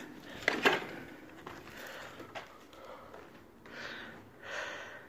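Heavy breathing close to a phone microphone, with three breaths near the end. There is one sharp knock about half a second in, in a small room strewn with rubble.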